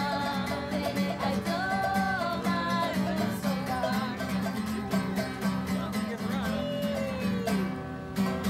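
Acoustic guitar and ukulele strummed in a steady rhythm, playing a Polynesian welcome song, with voices singing over them.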